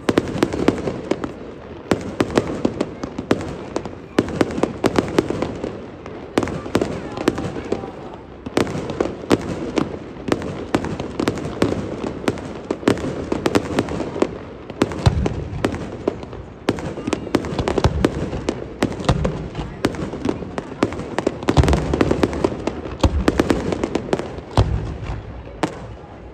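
Aerial fireworks bursting overhead: a dense, rapid crackle of popping stars throughout, with several deeper booms of shells bursting in the second half.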